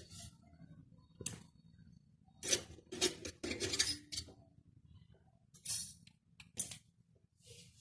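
Small metal tools and fittings clinking, clacking and scraping in irregular bursts, with short hissy rasps, loudest in a busy cluster a few seconds in and two more sharp bursts near the end.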